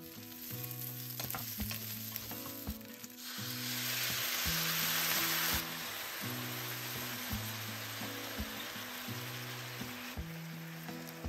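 Fish cake stir-frying in a pan, sizzling, with the clicks of a utensil stirring it. The sizzle swells louder for a couple of seconds about three seconds in, then settles back.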